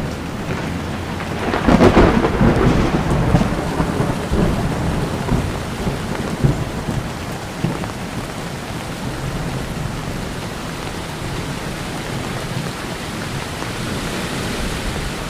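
Heavy rain falling steadily, with a clap of thunder about two seconds in that rumbles on and fades over the next few seconds.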